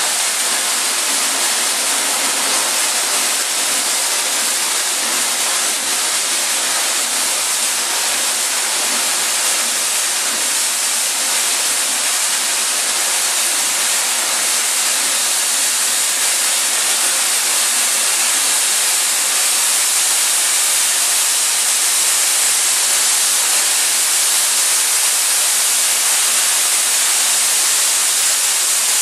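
Steady hiss of steam escaping around the cylinders of a standing East Broad Top steam locomotive, building pressure during morning preparation.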